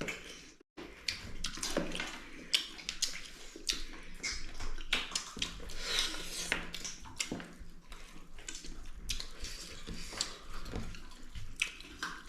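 Wet eating sounds: chewing and mouth smacking on chicken and rice, a busy run of small clicks and squelches, broken by a brief silent gap about half a second in.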